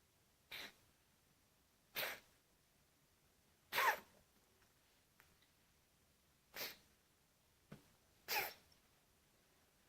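A pet coughing in short, sharp fits, five coughs spaced a second or two apart.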